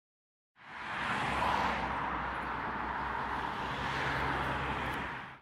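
Steady rushing outdoor background noise with a low hum underneath, fading in about half a second in and cutting off abruptly at the end.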